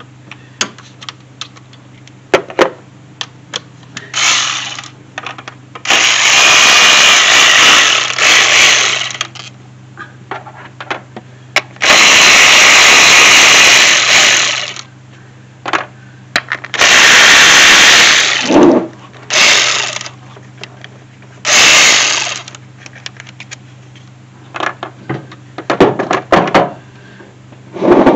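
A cordless power driver spins the ignition coil hold-down bolts on a Toyota V6. It runs in about six loud bursts, most of one to three seconds, with small clicks and knocks of the socket and bolts in between.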